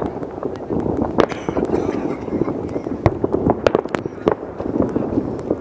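New Year's Eve fireworks and firecrackers going off all over a city at once: irregular sharp bangs and pops over a steady din of more distant blasts. The sharpest cracks come about a second in and about three seconds in.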